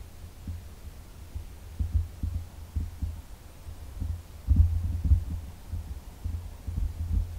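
Wind buffeting the microphone outdoors: irregular low rumbling gusts, strongest a little past halfway through.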